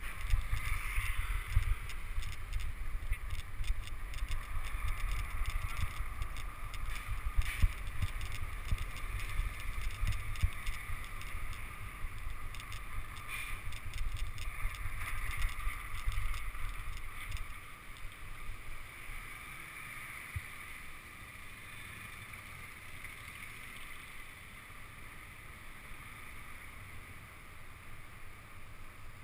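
Bicycle riding over cobblestones, heard from a camera mounted on the bike: a jittery rumble and rattle from the wheels on the stones, mixed with wind on the microphone. After about 17 seconds it eases to a quieter, steadier rolling noise.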